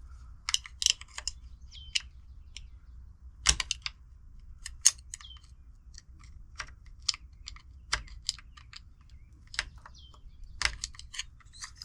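Irregular sharp metallic clicks and clinks, a few with a short high ring, from a rifle's action and parts being handled and worked by hand.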